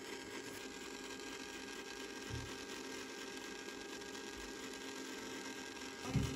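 Small battery-powered motor of an EggMazing Mini egg decorator running steadily, spinning an egg, with a steady hum. A soft bump about two seconds in and a louder one near the end.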